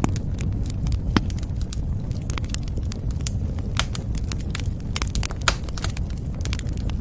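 Wood fire crackling in a fireplace: irregular sharp pops and snaps, a few louder ones, over a steady low rumble.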